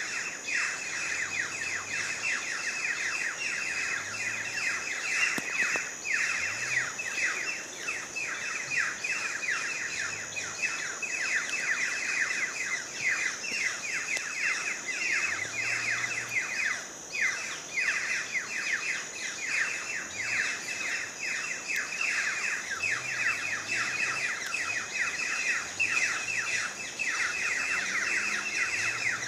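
A dense chorus of many birds chirping rapidly and without pause, with a steady high-pitched tone running beneath it.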